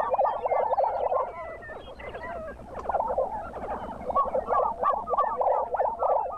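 A chorus of displaying male lesser prairie chickens on their lek: many short cackling and gobbling calls overlapping in a dense, continuous chatter, easing off briefly about two seconds in.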